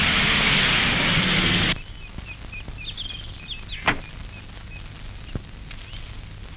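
Car driving on a dirt road, its engine and tyre noise cutting off abruptly a little under two seconds in. Then birds chirp in short high calls, with a single sharp click about four seconds in.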